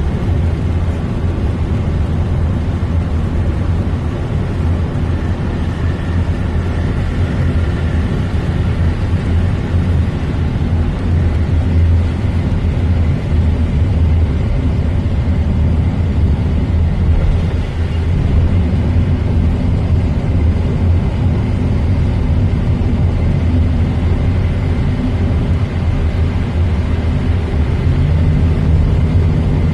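Van driving on the road, a steady engine and road rumble heard from inside the cabin.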